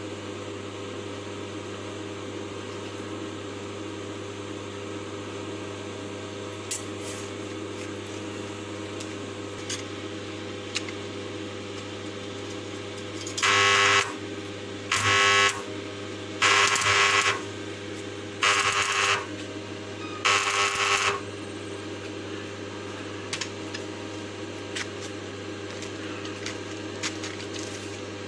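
A steady mechanical hum, broken about halfway through by five short, harsh bursts of noise, each under a second long and about one and a half seconds apart.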